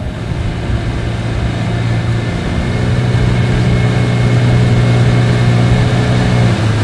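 Outboard motor running steadily, pushing an aluminium jon boat along, growing louder over the first few seconds and then holding.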